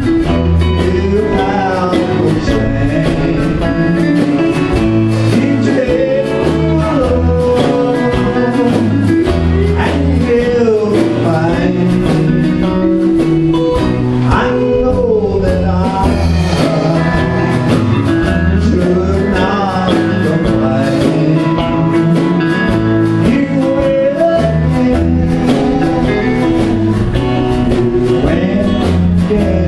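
Live country music: a man sings lead into a microphone, backed by acoustic and electric guitars over a moving bass line.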